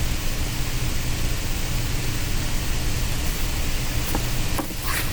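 Steady background hiss with a low hum underneath, and a few short clicks near the end.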